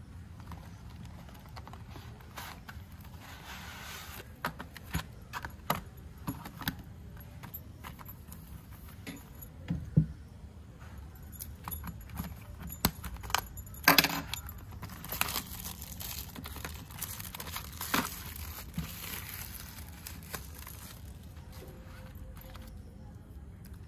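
Plastic wrap crinkling and rustling as it is snipped with scissors and pulled off a box of oil pastels, with many sharp clicks and taps. The loudest clicks come about ten and fourteen seconds in.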